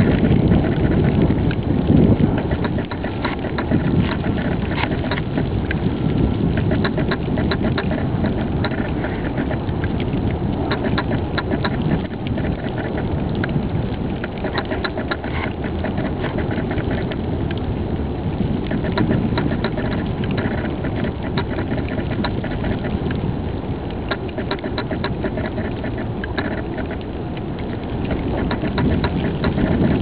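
Storm wind buffeting the camera's microphone: a steady low rushing rumble, with many small sharp clicks scattered through it.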